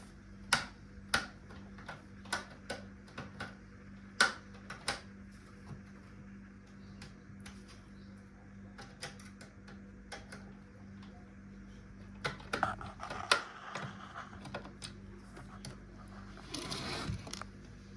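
Scattered light clicks and taps as tools and the plastic casing and parts of a radio-cassette CD player are handled during disassembly, over a faint steady hum. A few short scrapes come near the end.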